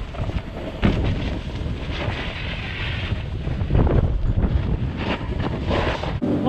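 Wind rushing over a camera microphone carried down a ski run, mixed with the hiss and scrape of snowboard edges on packed snow; the rush surges and eases unevenly.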